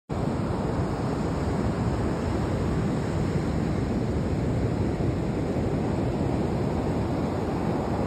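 Ocean surf and wind at the shore, a steady rushing noise with no breaks.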